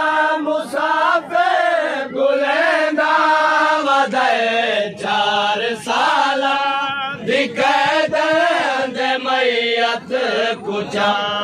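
A crowd of men chanting a noha, a Muharram mourning lament, together and loudly, the sung melody rising and falling phrase by phrase.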